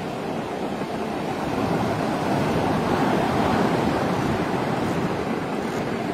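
Sea surf breaking and washing up a sandy beach: a steady rushing noise that swells to its loudest about halfway through, then eases.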